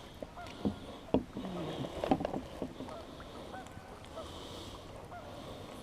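A few sharp knocks of gear against a small boat, with faint bird calls on the water.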